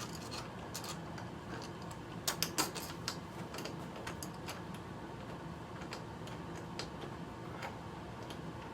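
Small sharp clicks and rattles of door knob hardware being pushed into place and handled, with a quick cluster of clicks about two and a half seconds in.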